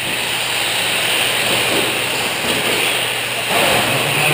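Electric 1/10-scale short-course RC trucks racing on an indoor dirt track: a steady mix of motor whine and tyre noise.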